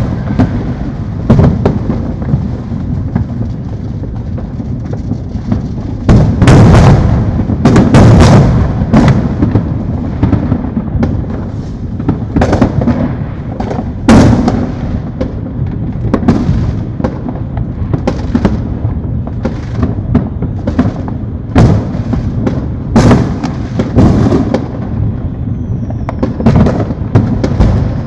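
Neighbourhood fireworks: a constant low rumble of distant bursts, then from about six seconds in a dense run of sharp bangs, booms and pops, several close and loud.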